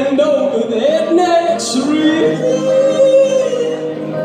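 A man singing a sliding, bending melody live, over his own electric guitar.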